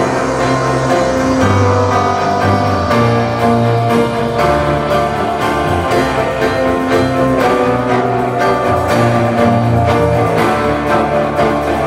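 Recorded acoustic music played back over a hi-fi system's floor-standing loudspeakers, with piano over sustained low bass notes that change every second or so.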